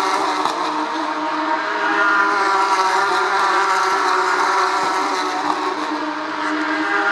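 Porsche Carrera Cup race cars' flat-six engines running with a steady, even note, their pitch holding nearly constant rather than sweeping up or down.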